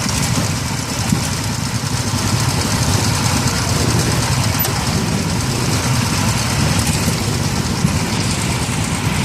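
A vehicle engine running steadily, a low rumble with noise over it.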